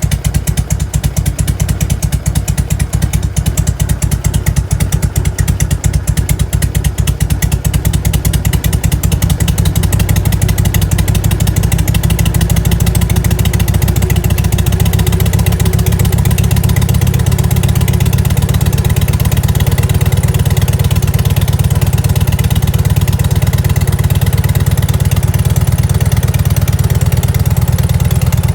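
1998 Harley-Davidson Evolution V-twin (FLSTC) idling through its stock mufflers, with a lumpy beat that quickens and evens out about ten seconds in. It is run to bring out a faint ticking, squeaking noise that the owner hears from around 1000 rpm but not at a 500 rpm idle.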